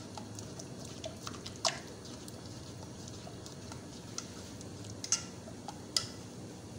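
A metal spoon stirring thick white sauce in a saucepan: scattered soft scrapes and clicks against the pan, with a few sharper clinks at about two, five and six seconds in, over a steady low hum.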